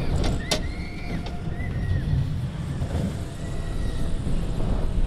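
Mack Wild Mouse roller coaster car running along its steel track, with a steady low rumble. A few short high squeals come and go, and there is one sharp click about half a second in.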